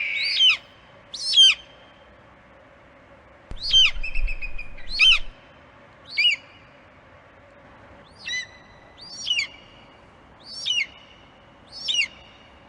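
Bald eagle calling: a series of about nine short, thin, high-pitched piping notes spaced a second or so apart, each sharply falling in pitch and some trailing into a brief held tone.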